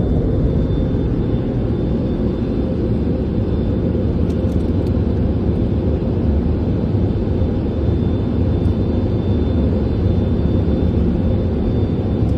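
Steady, loud rumble of automatic car wash machinery heard from inside the car's closed cabin.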